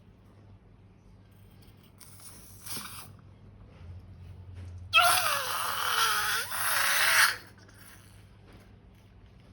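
Balloon being squeezed out through its neck: a short hiss, then a louder hissing rush with a wavering squeal that lasts about two seconds and stops abruptly.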